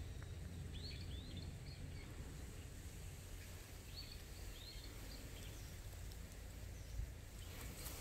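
Short, high bird calls outdoors: a quick run of three or four chirps about a second in and two more around four seconds, over a faint, steady low rumble.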